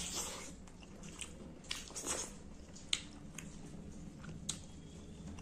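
Close-miked mouth sounds of a man chewing a handful of rice and fish curry eaten by hand, with several sharp mouth clicks scattered through the chewing.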